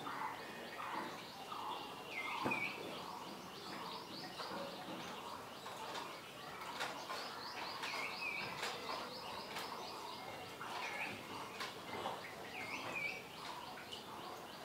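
Small birds chirping: a steady scatter of short high chirps, with a louder swooping two-note call repeated every few seconds.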